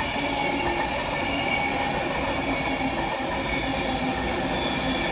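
Class 390 Pendolino electric train running past: a steady rumble of wheels on the rails with a constant whine of several held tones over it.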